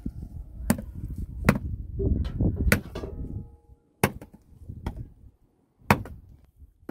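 Hatchet chopping a thin wooden stick on a log chopping block: six sharp chops, unevenly spaced about a second apart, the last ones the loudest, with a low rumble under the first few.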